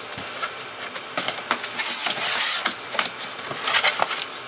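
Packaging being handled and torn open by hand: scratchy rustling and tearing with scattered clicks and knocks, loudest in a hissing rip about two seconds in.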